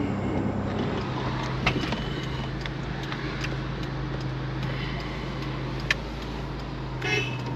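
Vehicle engine and road noise heard from inside the cab while driving slowly: a steady low hum whose pitch shifts slightly about two seconds in, with a couple of sharp clicks.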